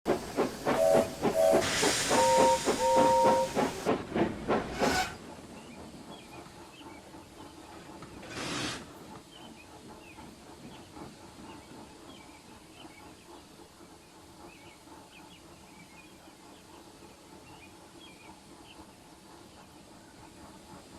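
Steam locomotive running with fast, even chuffs and loud steam hiss, its whistle giving four short two-note toots; the sound cuts off abruptly about five seconds in. A short burst of steam hiss follows a few seconds later, then a faint background with small high chirps.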